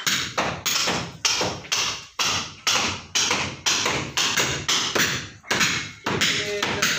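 Hammer blows on a brick wall, struck steadily about twice a second, as the wall is broken out to make a window opening.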